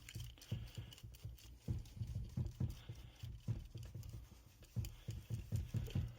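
Paintbrush scrubbing sawdust off a chainsaw around its fuel and bar-oil caps: quick, irregular brush strokes with light knocks on the saw's plastic housing, about two to three a second.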